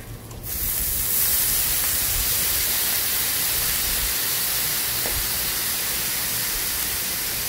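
Water squirted from a squeeze bottle onto a hot flat-top griddle around taco-seasoned ground beef, hissing loudly as it boils off in steam. The hiss starts suddenly about half a second in and holds steady. The water is being added to simmer the taco seasoning into the beef.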